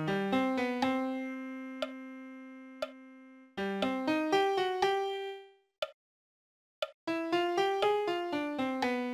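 Piano playing a sight-reading exercise at ♩=60: short phrases of quick running notes, one note held for about three seconds, with pauses between phrases. A metronome click sounds once a second throughout.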